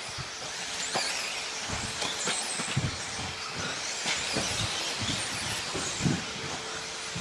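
1/10-scale electric off-road RC buggies racing on a carpet track: a steady high hiss of their electric motors and tyres, with several dull thumps, the loudest about three and six seconds in.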